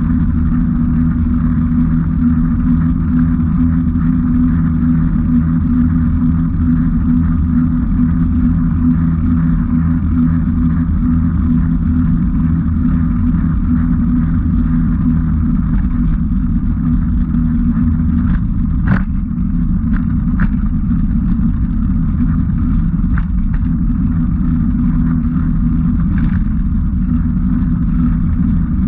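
A motor running steadily under way, a low even drone with no revving, with a few short sharp clicks about two-thirds of the way through.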